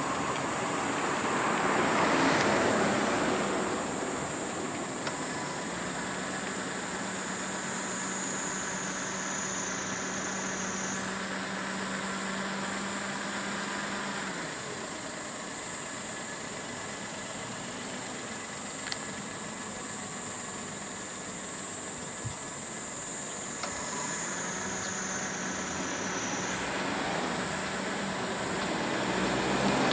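Road traffic: vehicles passing, one about two seconds in and another swelling near the end, with a steady high-pitched drone throughout.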